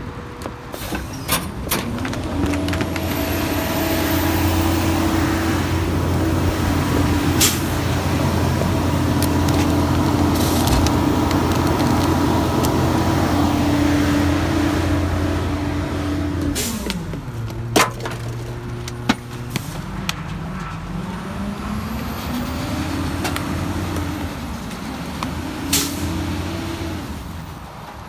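Diesel engine of a Sterling LT7500 rear-loader garbage truck revving up and holding high and steady while the Heil PakMor packer cycles. About two-thirds in it drops back, then rises again as the truck pulls away, with a few sharp clicks and a short hiss of air.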